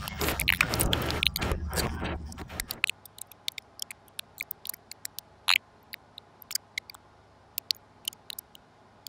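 Fan and window air-conditioner noise, a steady low hum with hiss, dotted with sharp mouth clicks: the noise and clicks that a de-noise and de-click plug-in has stripped out of a voice recording. About three seconds in, the hum and hiss drop away, leaving only faint scattered clicks.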